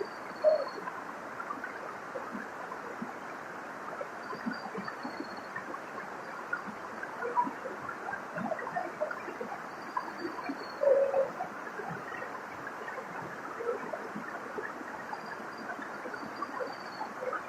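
Waterfall water rushing and splashing steadily, with a few louder splashes. A bird's faint high chirp repeats every few seconds.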